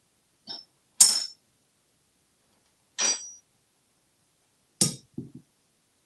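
Metal teaspoon clinking on a countertop as an African grey parrot bangs it about ('spoon music'): four sharp ringing clinks, the loudest about a second in, followed by a couple of duller knocks near the end.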